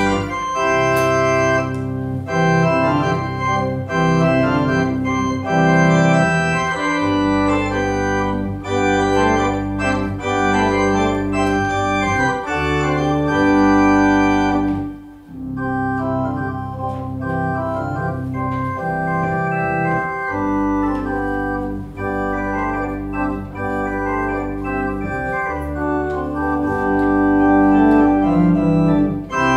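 Organ playing held chords over a moving bass line, with a brief break in the sound about halfway through before the playing resumes.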